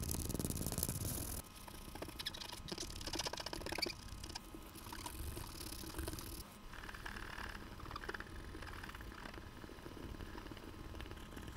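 Pegwood and a small steel tool scraping and rubbing rust off small watch movement parts on tissue paper: dry scratching, loudest for the first second or so, then finer crackly scraping with light ticks and softer rubbing.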